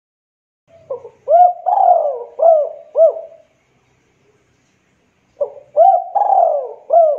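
Spotted dove (local Javanese derkuku) cooing in two phrases. Each phrase is a short opening note, then a run of rounded coos with one longer, drawn-out note in the middle. The second phrase starts a little past halfway and is still going at the end.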